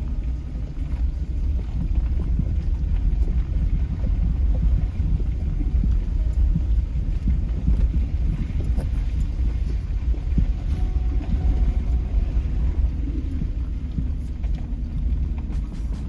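Steady low rumble of a vehicle driving, heard from inside.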